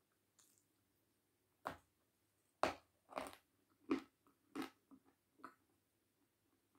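A person biting into and chewing something hard and crunchy with the mouth closed: a first crunch about a second and a half in, then about six more crisp crunches over the next four seconds.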